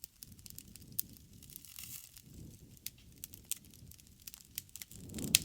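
Wood campfire crackling: irregular sharp pops and snaps over a low rumble of the flames, with one louder pop near the end.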